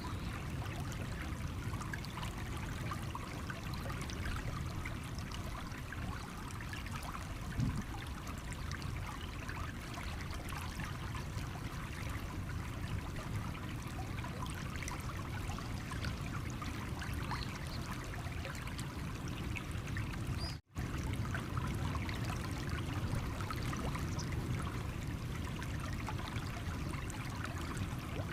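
Small stream of water flowing and trickling over stones, a steady babble without pause. There is a split-second drop-out about three-quarters of the way through.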